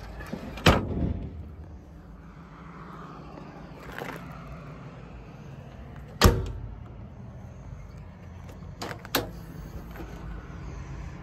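A handful of sharp knocks and clunks, the loudest about six seconds in and a quick pair near the end, over a steady low hum.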